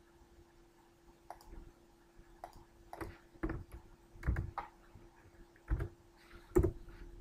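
Computer mouse clicks and a few keyboard keystrokes, irregular and sharp, over a faint steady hum.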